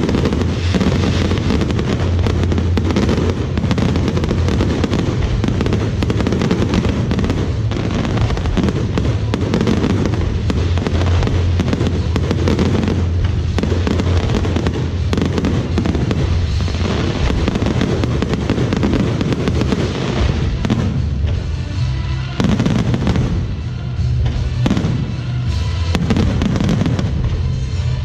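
Fireworks going off in a continuous barrage: a dense run of bangs and crackles over a steady low rumble, with no break.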